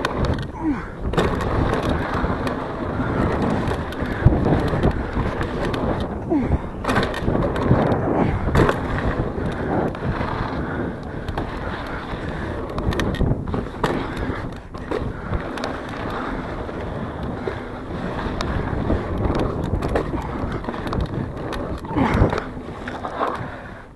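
Mountain bike rolling fast over hard-packed dirt jumps and berms: a steady rush of knobby tyres on dirt, broken by frequent knocks and rattles from the bike as it lands and pumps through the rollers.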